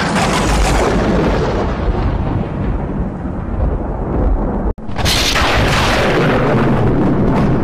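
Animated logo-intro sound effect: a loud, continuous noisy rumble with strong low end. It cuts out for an instant a little before five seconds in and comes back as a bright rushing burst.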